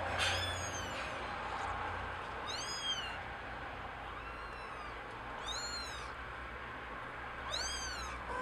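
Young kitten mewing: four short, high-pitched mews, each rising then falling in pitch, a couple of seconds apart.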